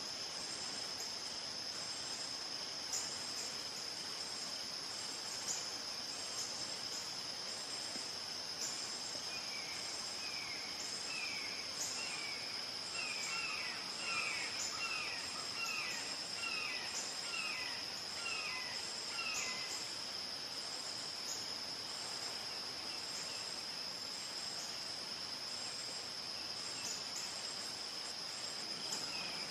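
A red-shouldered hawk gives a series of about fifteen down-slurred calls, starting about a third of the way in, growing louder and then fading away after about ten seconds. A steady high drone of crickets and other insects runs underneath throughout.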